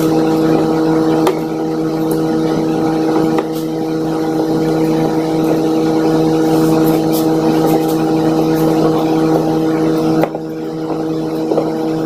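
A steady machine hum, several pitches held level, with a few sharp clicks.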